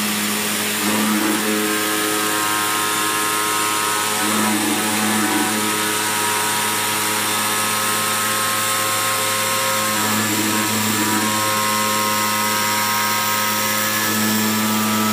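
Flatbed CNC cutting plotter running: a steady hum and hiss from the machine with several motor whines that change pitch and switch every few seconds as the gantry and cutting head move across the sheet.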